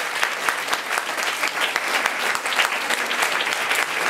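Audience and cast applauding: many hands clapping steadily.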